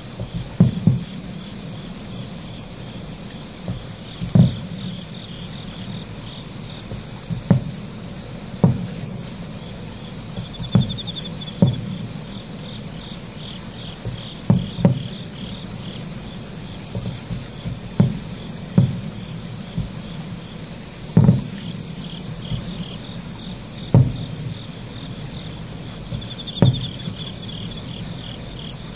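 Aerial firework shells bursting about 3 km away, heard as a dozen or so dull, low booms spaced one to three seconds apart, some in quick pairs. Under them, insects keep up a steady high trill with pulsing chirps.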